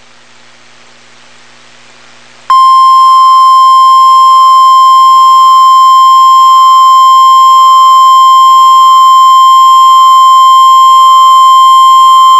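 NOAA Weather Radio warning alarm tone: a single loud, steady 1050 Hz tone that starts abruptly about two and a half seconds in, after faint radio hiss, and sounds for about ten seconds. It signals that an urgent warning, here a tornado warning, is about to be read.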